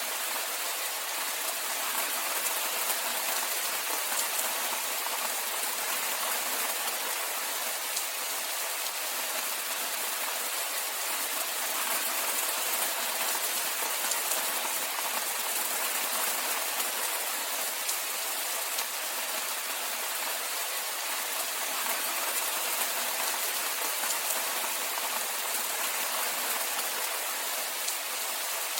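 Steady rainfall: an even hiss of many fine drops, unchanging, with no single sound standing out.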